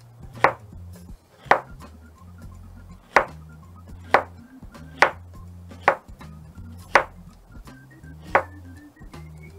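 Chef's knife slicing an onion into rings, each cut ending in a sharp knock on a plastic cutting board: eight cuts at uneven intervals of about a second, over quiet background music.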